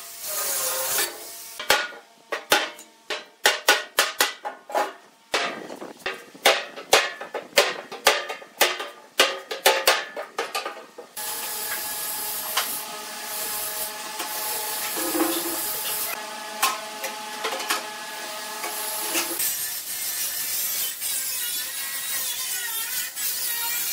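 Angle grinder cutting into the wall of a steel oil drum for about a second, then a run of sharp, irregular knocks and taps lasting several seconds, followed by a stretch of steady tones. Near the end the grinder cuts the drum again.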